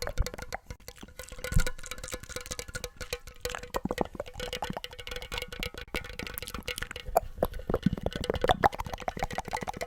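Rapid, irregular small taps and clicks on hard objects, ASMR trigger sounds, growing denser in the second half, over a faint steady tone.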